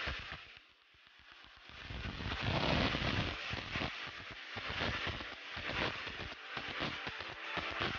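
A motor scooter passing close by, its engine and tyre noise swelling to a peak about three seconds in and then fading.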